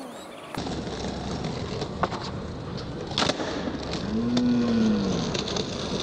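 Skateboard wheels rolling on concrete, with sharp clacks of the board about two and three seconds in. Near the end a single long low call rises and falls in pitch.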